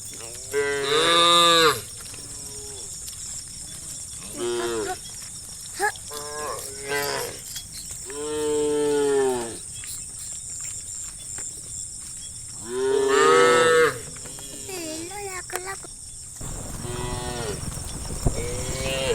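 Cattle mooing, several cows calling one after another: about eight moos of varying length, the loudest about a second in and about thirteen seconds in, and one long drawn-out moo in the middle.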